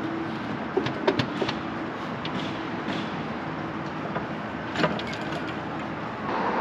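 A few sharp metallic clicks and knocks from gear being handled inside a truck's diamond-plate side toolbox hung with tie-down chains, a cluster about a second in and another near five seconds, over a steady mechanical hum.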